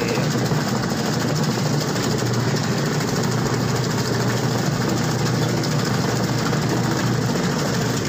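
Micromatic top-loading washing machine running a wash: a steady low motor hum with the pulsator churning water in the tub.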